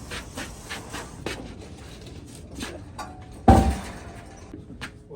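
Work noise from handling a pickup truck's toolbox: a run of light clicks and taps, then about three and a half seconds in a sudden loud bang with a brief ringing tone.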